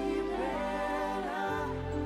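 Slow worship music: sustained keyboard chords with a wavering melody line with vibrato above them. The chord and bass shift about three quarters of a second in.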